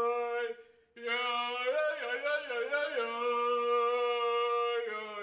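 A man's voice chanting a prayer in long held notes. It breaks off briefly about half a second in, then comes back wavering up and down before settling into one long steady note.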